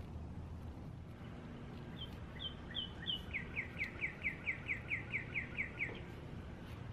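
A songbird singing: four high, clear notes, then a rapid run of about a dozen downward-slurred notes, about five a second, stopping abruptly. It sings over a steady low background rumble.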